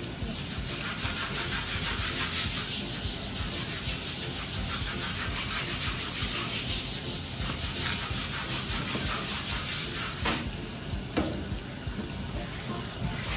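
Kitchen knife scraping the scales off a small fish on a cutting board in fast, repeated strokes, with a tap running steadily into the sink. The scraping stops about two-thirds of the way through, leaving mostly the running water.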